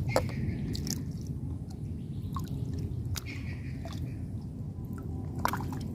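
Lake water dripping and sloshing softly around an angler wading in it as he casts and raises a fishing pole, with a few small clicks over a steady low rumble.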